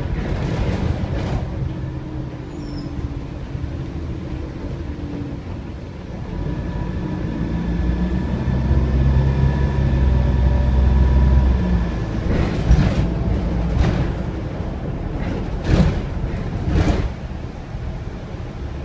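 Optare Versa single-deck bus heard from inside the cabin while under way: the diesel engine's steady drone builds as it accelerates in the middle, then eases off. A few sharp knocks and rattles come near the end.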